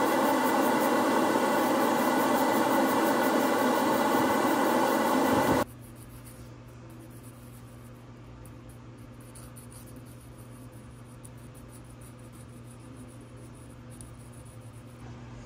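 Spray booth extraction fan running with an airbrush hissing, a loud steady noise with several steady tones in it. About six seconds in it cuts off abruptly, leaving a much quieter room with a steady low hum.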